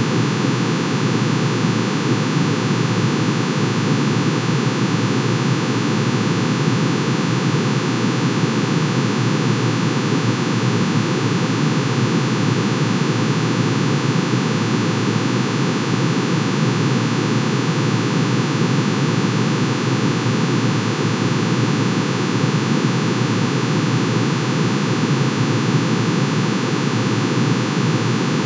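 Synthesized drone made of many sine tones summed together, one for each line in manganese's atomic emission spectrum, pitch-shifted into hearing range. It holds steady and unchanging, a dense hiss-like chord with many fixed tones.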